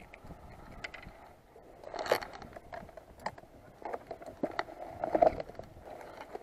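Scattered scuffs, scrapes and clicks of footsteps and of fishing gear being handled on concrete as a small caught fish is picked up, with the busiest moments about two seconds in and about five seconds in.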